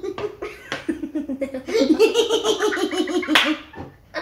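A woman and a young girl laughing together in long runs of rapid ha-ha pulses.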